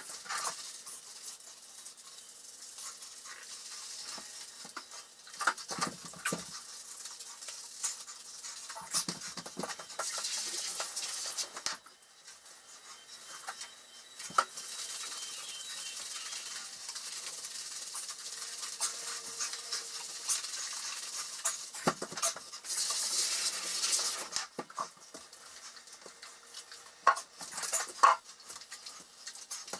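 Hands squishing and rubbing shampoo lather into a wet borzoi's coat, a crackling, wet patter that comes and goes in stretches, with scattered clicks and knocks and a couple of louder knocks near the end.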